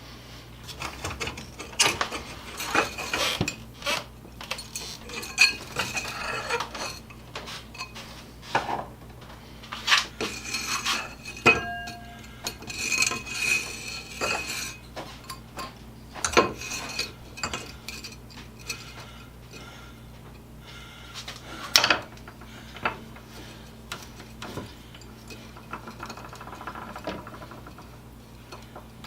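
Irregular metallic clinks and knocks of steel tools and metal parts being handled and set down, some ringing briefly; the sharpest knock comes about two-thirds of the way through.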